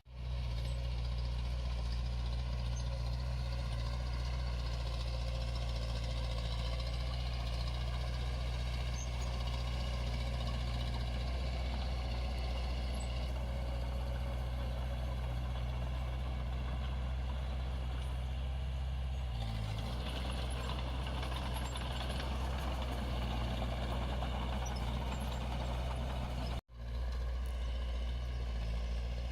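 Diesel engine of heavy earthmoving machinery running steadily under load, with a brief change about two-thirds of the way through and a sudden momentary cut-out near the end.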